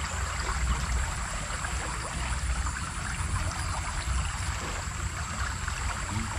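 Small river's water running steadily, with a low rumble underneath and a thin, steady high tone.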